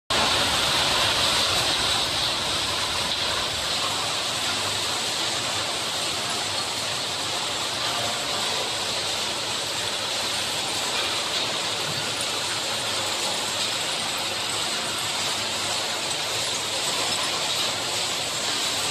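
Aluminium scrap X-ray sorting line running: a steady, dense machinery noise of conveyors and scrap pieces moving through the sorter, with a strong high hiss over it. A little low rumble drops away a few seconds in.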